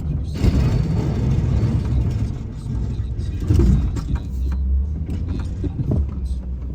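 Vehicle engine running steadily with a low rumble, joined by a louder rushing noise from about half a second in that fades by around three seconds.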